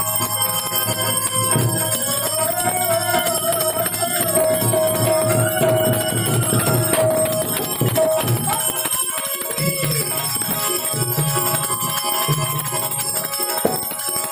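Harmonium playing a sustained devotional folk melody, with a bright jingling, bell-like percussion ringing steadily over it and intermittent low drum beats.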